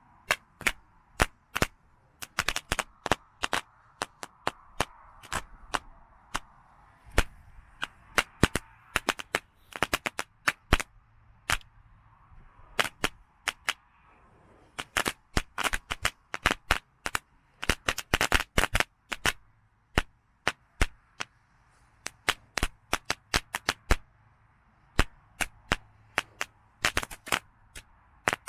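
A 'magic whip' ground firework going off: a long, irregular string of sharp pops and cracks, some in quick clusters, over a hissing burn.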